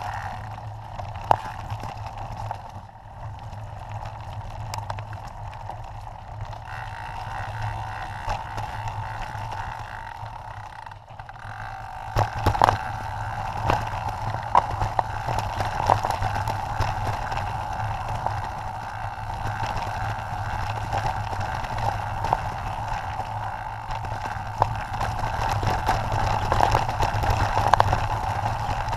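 Mountain bike descending a rocky dirt trail: tyres rolling over dirt and stones, and the bike rattling with sharp knocks over bumps, under a steady hum. The knocks grow louder and more frequent about halfway through.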